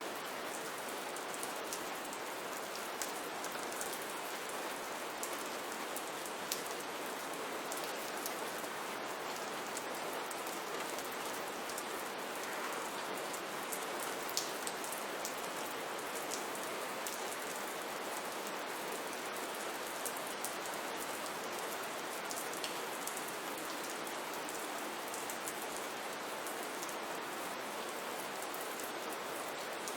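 Steady rain falling, an even hiss with scattered sharper drop ticks throughout.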